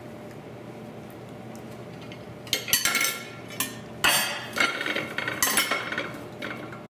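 Air fryer's stainless-steel mesh rotisserie basket clattering and clinking as it is handled and its lid is worked off, with fries shaken inside it. The clatter starts about two and a half seconds in and comes in two spells, the louder from about four seconds, over a faint steady hum.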